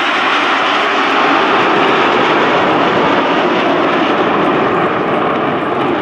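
Aermacchi MB-339 jet trainers, each with a single Rolls-Royce Viper turbojet, flying past: a loud, steady jet noise.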